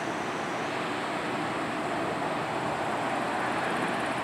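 Steady rush of water from a passing container ship's bow wave and wake, growing slightly louder near the end as the ship draws closer.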